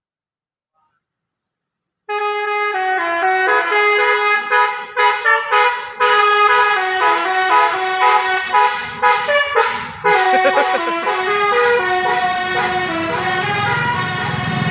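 About two seconds of silence, then a bus's telolet basuri musical air horn plays a melody of quick stepped notes, with a brief break about ten seconds in.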